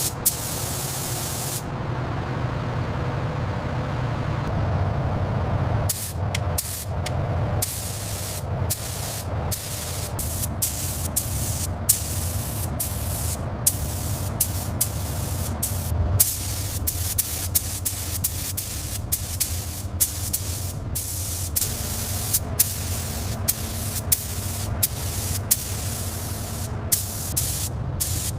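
Compressed air hissing from an air tool over a low steady machine hum, the hiss briefly stopping and restarting many times from about six seconds in.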